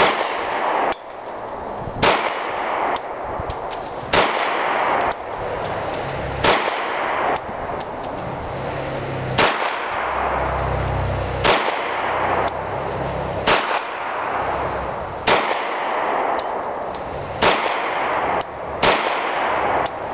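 FN FNX-45 pistol firing .45 ACP in a string of about ten slow, aimed shots, roughly two seconds apart, each shot followed by a long echo.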